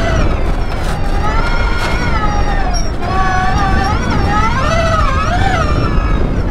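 Sierra Echo's 400-volt electric drive motor whining as the car drives across desert dirt. Its pitch falls, then climbs again with a couple of wavers as the speed changes, over a heavy rumble of wind and tyre noise.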